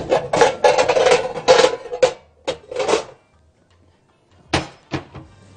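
Cookware clattering as a baking dish is fetched and set out: a dense run of knocks and clinks with some ringing for about two seconds, then a few separate knocks.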